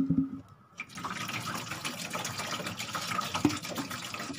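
Water poured from a plastic bottle through the side inlet into the water tank of a Dawa AC-3000 air cooler, a steady pouring and splashing that begins about a second in. A short, loud sound comes at the very start, before the pour.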